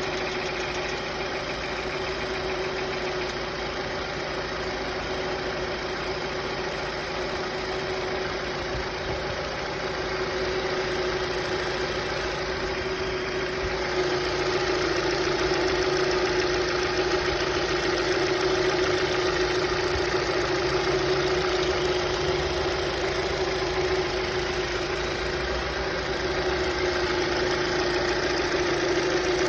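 Hyundai Accent II engine idling steadily with a knocking from the hydraulic valve lifters, which the owner takes for worn or sticking hydraulic lash adjusters. It gets a little louder from about halfway through.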